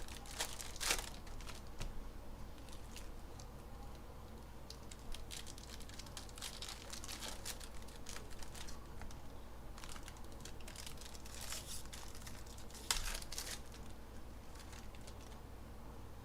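Trading-card pack wrappers being torn open and crinkled, with cards handled in between: a run of short rustling crackles, the sharpest around a second in and again about thirteen seconds in.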